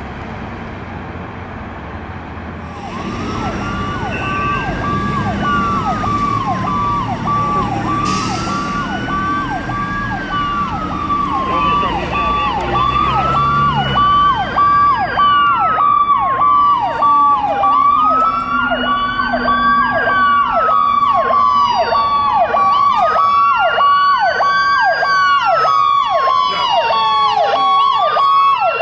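Several emergency-vehicle sirens at once, starting about three seconds in and growing louder as they approach. A slow wail rises and falls about every five seconds, overlaid with fast, repeated yelp sweeps and a steady pulsing tone.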